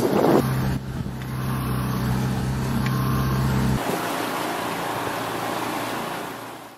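Sailboat's engine running steadily, a low hum under wind and rushing water. About four seconds in the hum drops out, leaving wind and water noise that fades away at the end.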